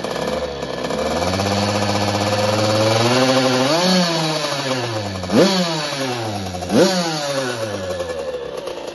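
Puch Cobra M-82 TT two-stroke motocross engine revving. Its pitch climbs slowly for about three seconds and falls back, then comes two quick throttle blips that die away.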